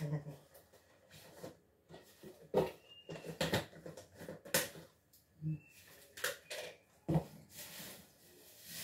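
A plastic jar with its screw lid being handled and packed with peeled garlic: a series of irregular knocks and clicks, about six loud ones, with rustling toward the end.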